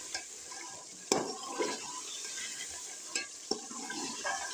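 A metal ladle stirs a chicken and garlic masala that is frying in a metal pot on a gas stove, over a steady sizzle. The ladle scrapes and knocks against the pot a few times, loudest about a second in.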